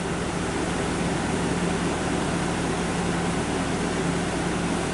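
Window air conditioner running steadily: an even rush of fan air with a constant low hum underneath.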